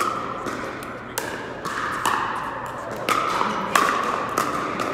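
Pickleball paddles hitting a plastic pickleball back and forth in a rally: about six sharp pops, roughly every half second to a second, each one ringing on in the indoor hall.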